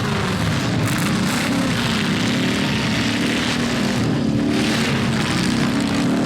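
Several demolition derby cars' engines running and revving together, a loud, steady din of overlapping engine notes that rise and fall.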